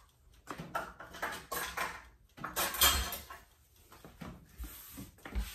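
Dishes and utensils clattering as a kitchen counter is cleared: a run of short knocks, then the loudest clatter about three seconds in and a few lighter knocks after it.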